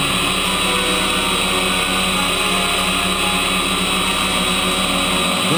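Hexacopter's electric motors and propellers whirring steadily in flight, several tones held together, shifting in pitch briefly near the end as the throttle changes.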